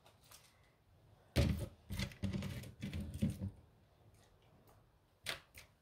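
Raw cabbage leaves crunching and rustling as a hand presses them down into a full steel pot, a couple of seconds of dense crackling, followed by two short clicks near the end.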